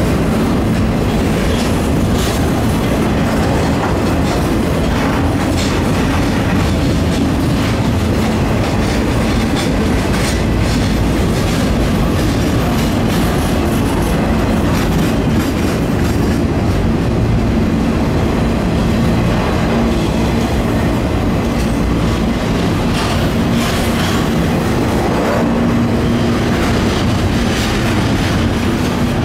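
Double-stack container freight train rolling past close by: a loud, steady rumble of steel wheels on the rails with scattered wheel clicks throughout.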